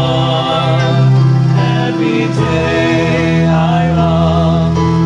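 Country-style Christian worship song playing, with guitar accompaniment and a singing voice.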